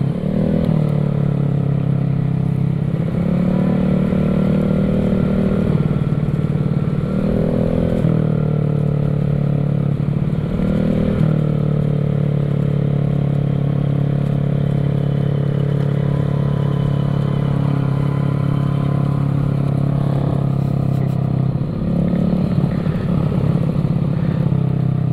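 Vespa scooter's big-bore engine, fitted with a 63 mm kit and still being run in, pulling along at a steady cruising note. The revs climb and settle back several times as the throttle is opened and eased.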